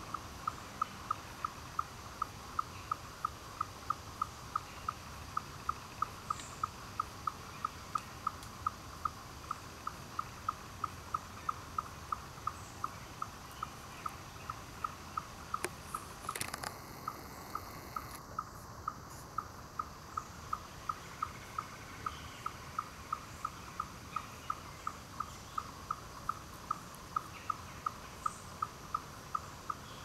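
Steady animal chirping: one short call repeated evenly, about two or three a second, over a low background hiss. A brief rustle cuts across it about halfway.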